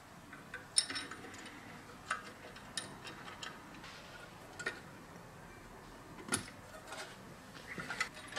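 Small metal parts of a 1922 Dazey butter churn's gear mechanism clicking and clinking irregularly as the gear wheel and pins are fitted into the frame by hand.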